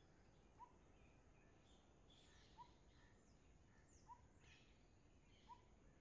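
Faint birdsong by a stream: one bird repeats a short, low rising note every second and a half to two seconds, while other birds add scattered high chirps and twitters over a steady low background rumble.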